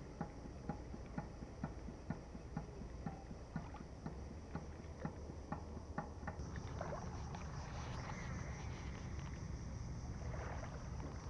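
Ryobi Varius DB300 baitcasting reel cranked on a retrieve, with a click about twice a second. The clicks stop about six seconds in and a softer rustling hiss follows.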